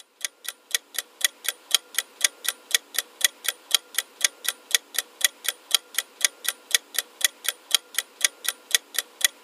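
Clock-ticking sound effect marking a quiz's answer countdown timer: steady, evenly spaced sharp ticks, about four a second.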